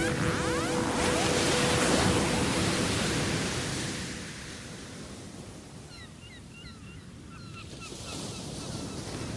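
Ocean surf washing onto a beach, louder over the first few seconds and then settling to a softer hiss. The last held tones of a music cue die away about a second in.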